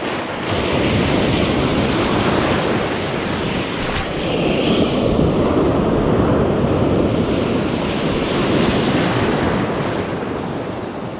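Ocean surf washing around the shallows: a steady rush of broken waves that swells and eases, with wind buffeting the microphone.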